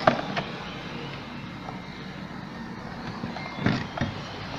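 Plastic parts of a steam ironing station's casing clicking and knocking as its cover is handled and fitted on, over steady background noise. There is a sharp click right at the start, another just after it, and a few knocks a little before the end.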